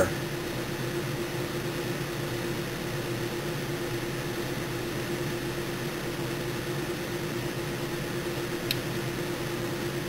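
Steady background hum: a faint held tone over an even hiss, with one small click about three quarters of the way through.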